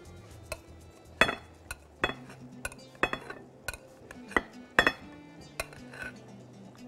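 Metal spoon clinking against a glass bowl as cooked penne is spooned out onto a plate: about ten sharp, scattered clinks. Soft background music sits underneath.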